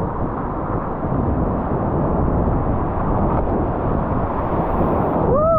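Steady, loud rushing of wind on the microphone mixed with heavy surf from strong waves.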